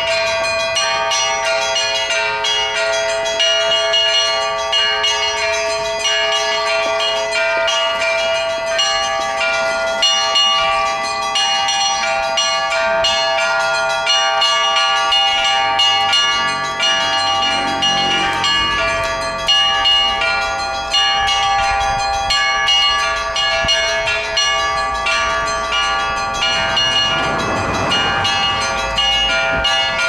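Orthodox church bells rung by hand in a belfry: a continuous peal of small and larger bells struck several times a second, their tones ringing on over one another.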